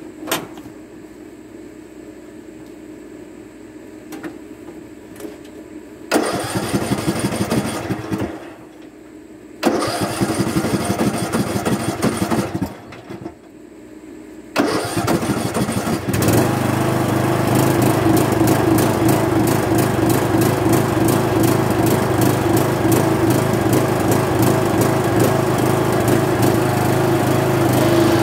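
Craftsman riding mower's engine cranked by its electric starter in three bursts, catching on the third attempt about sixteen seconds in and running steadily.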